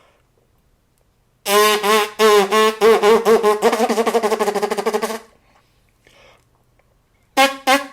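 Trumpet played with fast multiple tonguing: a run of short, crisp repeated notes for about four seconds. After a pause of about two seconds the playing starts again near the end.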